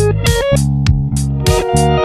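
Background music: a guitar-led track with bass and a steady beat.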